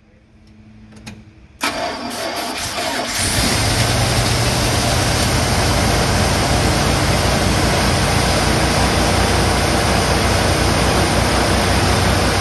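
Plymouth Trail Duster's carbureted engine cranked by the starter about a second and a half in, catching after a second or so of cranking and then running steadily. It is kept going on starting fluid sprayed into the carburetor.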